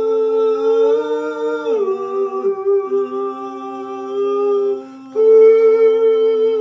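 Two elderly identical twins holding the closing notes of a song in two-part harmony, unaccompanied. Both voices step down together about two seconds in; the higher one breaks off briefly about five seconds in and comes back louder.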